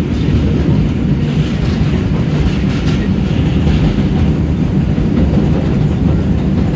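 Moving New York City subway train heard from inside the car: a steady low rumble of wheels on the elevated track, with a few faint clicks from the rails.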